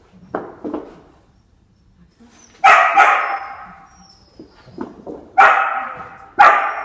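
A dog barking loudly four times: two quick barks about three seconds in, then two more about a second apart near the end. Each bark echoes in a large hall.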